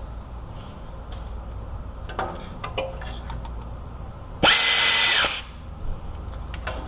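A small cordless power tool runs briefly, once, for under a second about four and a half seconds in, with a steady motor whine as it runs a starter mounting bolt down. Faint clicks and clanks of tools on metal come before it.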